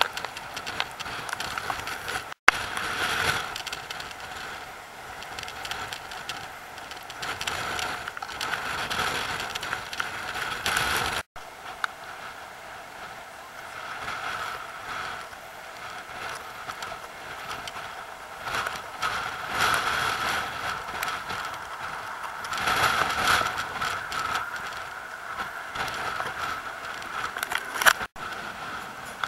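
Sea surf washing and breaking around shoreline rocks, swelling and easing every few seconds.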